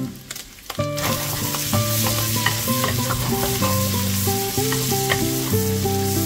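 Sliced leeks and diced bacon sizzling in a frying pan while a wooden spoon stirs and scrapes them, with scattered scraping clicks. Background music plays underneath.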